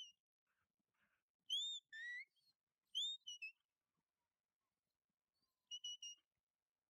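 Shepherd's whistle blown as herding commands to a working sheepdog. Two or three swooping rise-and-fall notes and a rising glide come about one and a half to three seconds in. Near the end there are three short, quick blasts on one pitch.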